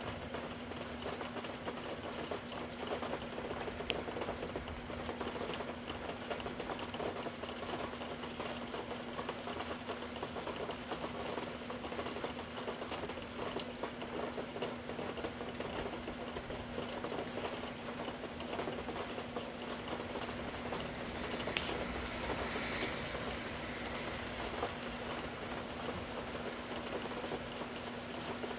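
Rain pattering steadily, a dense crackle of many small drops, with a faint steady hum underneath and one sharp click a few seconds in.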